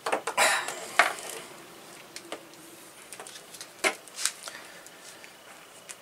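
Green Ideal wire nut being twisted hard by hand onto four 12-gauge copper wires: irregular sharp clicks and short scraping creaks from the plastic cap and the wires. The sounds are densest in the first second or so, with a few more single clicks about four seconds in.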